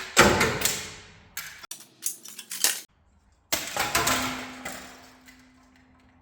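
Two loud sudden crashing hits, each fading away slowly over a second or two, with a quick run of sharp clicks and knocks between them.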